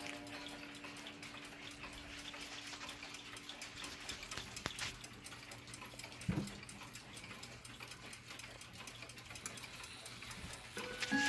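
Several mechanical pendulum clocks ticking together, with the ring of a chime dying away at the start. A couple of soft knocks come in the middle, and near the end a clock starts to chime.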